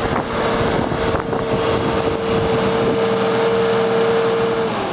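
New Holland Versatile TV140 bi-directional tractor's six-cylinder diesel engine running as the tractor drives, with a steady high whine that stops near the end.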